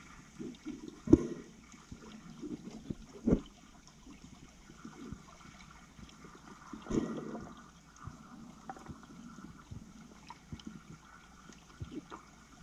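Underwater swimming-pool water sounds: low, irregular gurgling and sloshing with scattered knocks, and stronger thumps about a second in, at about three seconds and around seven seconds.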